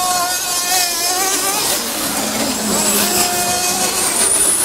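Several radio-controlled racing cars lapping the track, their motors whining and wavering up and down in pitch as they accelerate and brake.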